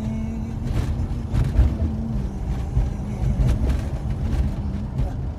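Steady low rumble with a constant hum, the sound of a vehicle on the move.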